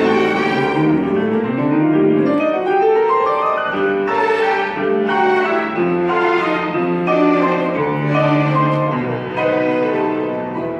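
Violin ensemble with piano accompaniment playing a classical piece: a rising run about a second in, then held notes over steady, regular chords.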